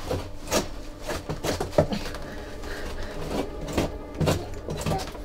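A metal-legged chair knocking and scraping as a person tied to it struggles, with irregular knocks and shuffles every half second or so.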